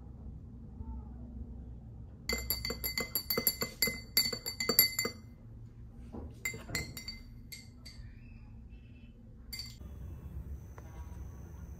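Metal spoon stirring in a tall drinking glass, clinking quickly and repeatedly against the glass for about three seconds, followed by a few scattered ringing clinks.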